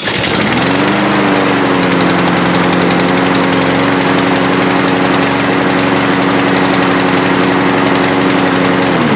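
Troy-Bilt push mower's small engine running: a brief rise in pitch just after it starts, then a steady, slow speed. It doesn't rev up to speed, held back by an air filter plugged with gas and oil. The engine falls away near the end.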